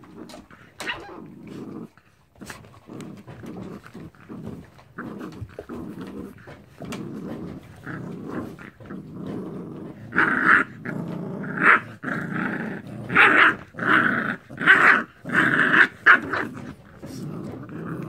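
American Bully puppies growling during rough play, in a steady run of irregular growls that turn into louder, separate bursts from about ten seconds in.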